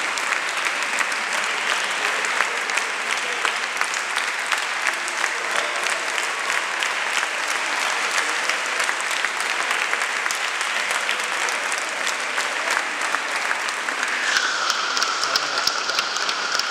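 Large audience applauding with dense, steady clapping.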